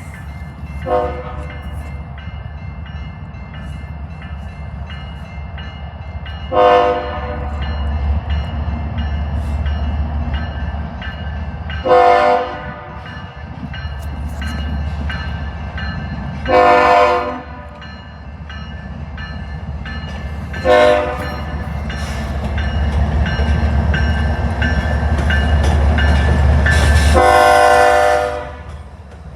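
Diesel locomotive's multi-chime air horn sounding a series of blasts for the grade crossing, six in all, the last one the longest, over the low rumble of the approaching locomotive that grows louder and then drops away near the end.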